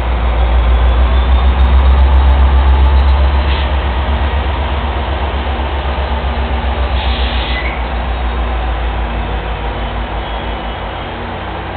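Metrolink commuter train pulling in: the diesel locomotive's deep, pulsing engine rumble is loudest in the first few seconds as it passes, then slowly fades as the bi-level coaches roll by. A brief high hiss comes about seven seconds in.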